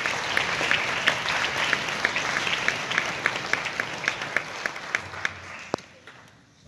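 Concert audience applauding in an auditorium, with single claps standing out from the general clapping. The applause dies away about five and a half seconds in, leaving a hush.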